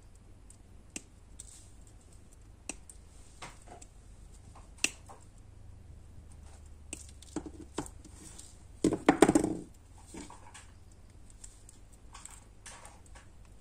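Small sharp clicks and snips of hand tools, wire cutters and pliers, cutting and bending thin wire on a wooden popsicle-stick fence, with a louder clatter of knocks about nine seconds in.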